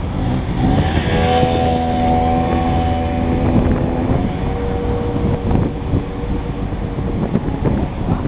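A motorbike engine running at a steady speed while passing close alongside for the first few seconds, over the steady rumble of riding along a town road.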